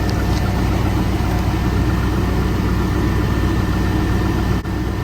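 A 1997 Chevrolet 1500's 5.7-litre V8 idling steadily, running on a newly fitted alternator.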